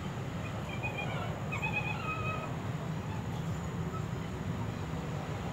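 Steady low outdoor rumble with faint, short, high chirps scattered through it.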